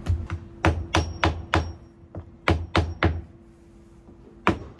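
Hammer blows on wood as the new covering board is fitted: a quick run of about five sharp strikes, then three more, and one more near the end, over a faint steady hum.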